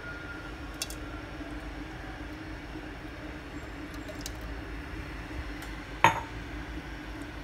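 Kitchenware clinking at a wok while cooking oil is added: a couple of faint clicks and one sharp clink about six seconds in, over a steady low hum.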